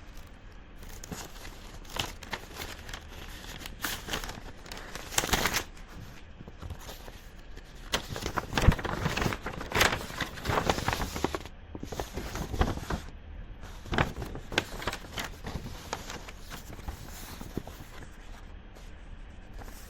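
Paper envelope being opened and the sheet of letter paper inside pulled out and handled: irregular rustling and crinkling with sharp crackles, loudest about halfway through.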